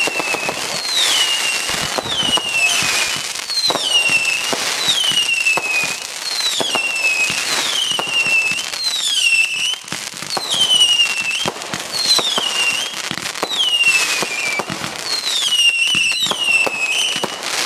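Consumer fireworks going off in quick succession: whistling shots about one a second, each whistle sliding down in pitch and then holding, over a constant scatter of crackles and pops.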